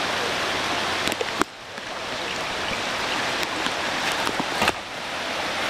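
Steady rushing of a swollen, muddy creek, with scattered sharp ticks. The noise drops suddenly about a second and a half in and again near five seconds, then builds back.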